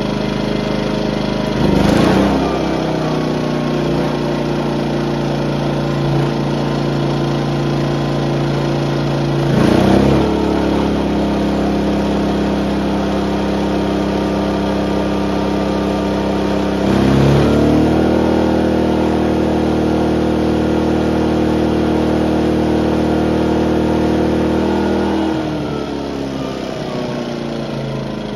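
Ryobi 2300 inverter generator's single-cylinder four-stroke engine running under an electrical load test and speeding up in steps, each with a short surge, about 2, 10 and 17 seconds in, as load is added. It eases back down near the end. It takes the load without an overload fault, now that the inverter module is replaced.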